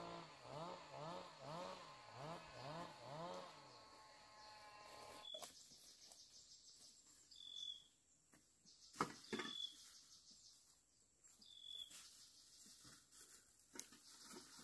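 Faint outdoor ambience. For the first few seconds a pitched call rises and falls about twice a second. Later come a few short high chirps and a couple of sharp knocks as bamboo poles are handled at a bamboo shelter.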